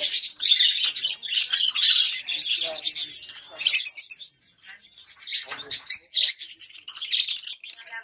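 A chorus of many small caged birds, canaries among them, chirping and twittering over one another in quick, overlapping calls, with a few short dips.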